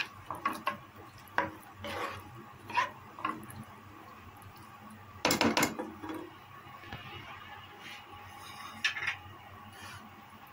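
A cooking spoon scraping and knocking against a non-stick pan while stirring chopped onions frying in oil: a run of short clicks and scrapes, the loudest clatter about five seconds in, and one more stroke near the end.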